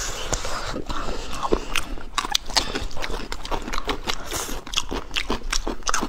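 Close-up eating sounds: biting and chewing braised pork ribs, with many irregular sharp crunchy clicks and wet mouth sounds.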